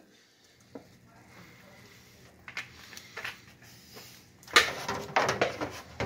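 Handling noise at an open dishwasher: a few light knocks, then a loud clunk and a short clatter as the dishwasher door is shut.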